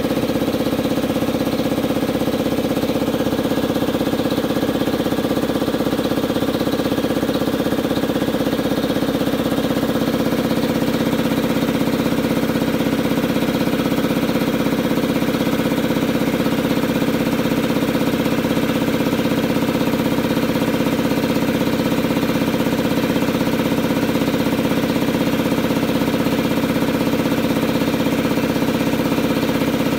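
Ingersoll-Rand T30 two-stage, air-cooled piston air compressor (model 242-5D) driven by its 5 HP electric motor, running at a steady, even pace. It is pumping the tank back up after its pressure switch cut it in at 95 PSI.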